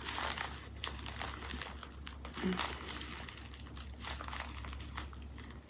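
Small plastic bag of diamond painting drills crinkling as it is squeezed and turned over in the hands.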